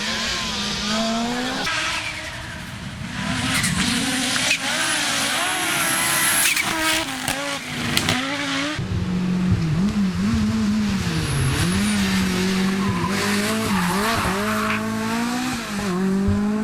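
Rally cars at speed on a stage: engines revving hard, pitch climbing and dropping again and again with gear changes and lifts, over tyre skidding and squeal.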